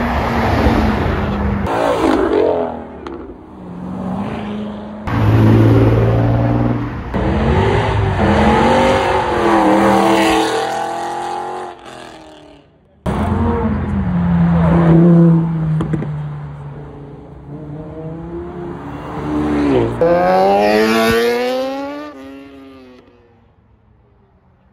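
Several performance cars accelerate hard past one after another, the first a Jeep Grand Cherokee Trackhawk with its supercharged V8. Each engine revs up and rises in pitch. The sound jumps abruptly from one car to the next several times, and it fades out near the end.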